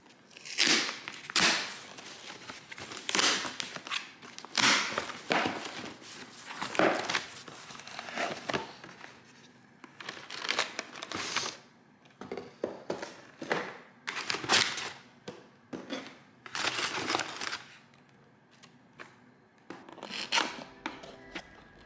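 Brown kraft packing paper crinkling and rustling in irregular bursts as it is pulled aside, along with cardboard box flaps being opened and handled.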